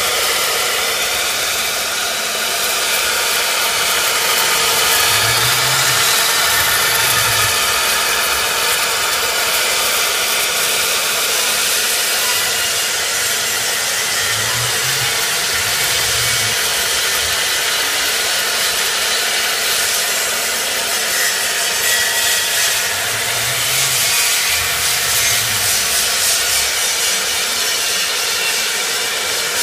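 CNC router spindle running with its bit cutting a foam block held on the rotary fourth axis: a steady loud hiss of cutting. A low hum rises and falls three times, about nine seconds apart.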